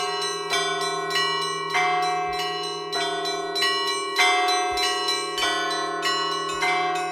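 Church bells ringing, several bells of different pitch struck in an uneven pattern about twice a second, each ringing on over a steady low hum.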